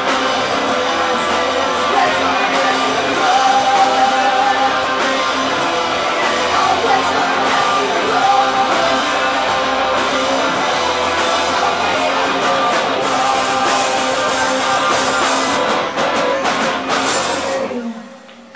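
Live rock band playing loudly, with a male singer's vocals over distorted guitars and drums. The band stops sharply just before the end.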